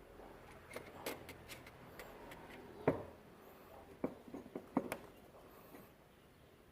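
Short clicks and knocks of small metal parts and hand tools being handled while a diesel fuel injection pump is taken apart, with a louder knock about three seconds in and a cluster of knocks about four to five seconds in.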